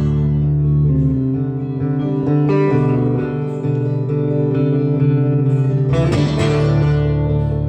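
Guitar music played live: plucked and strummed chords ringing, with the chord changing a few times.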